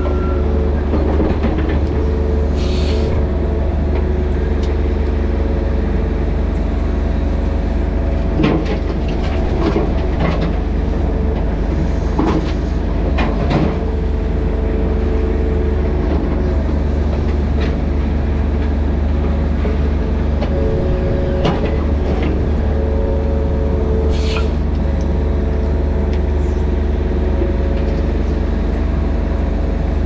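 Mini excavator's diesel engine running steadily, with occasional sharp clanks scattered through.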